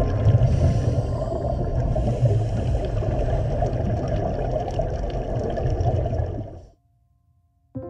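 Underwater rumble and gurgling of scuba regulator exhaust bubbles, muffled as picked up inside a GoPro housing. It cuts off suddenly near the end.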